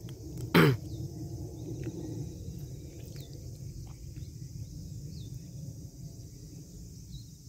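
Steady high chirring of insects over a low rumble, with one short loud vocal sound falling in pitch about half a second in.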